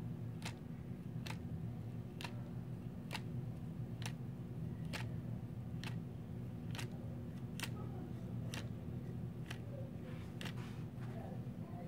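A laser-cut wooden pendulum clock with a Galileo-style escapement, driven by a rubber band, ticking steadily: a crisp wooden click a little faster than once a second, over a steady low hum.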